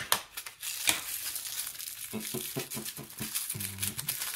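Small plastic packaging crinkling and crackling as a miniature toy is handled and unwrapped, with a couple of sharp clicks in the first second.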